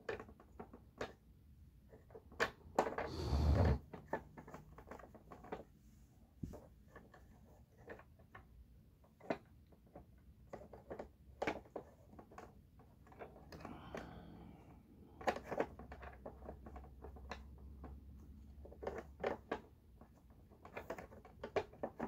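Scattered clicks and knocks of vacuum-cleaner parts being handled and fitted, as the height-adjuster wheels of a Dirt Devil Dynamite Plus upright are worked into place. A louder clatter comes about three seconds in.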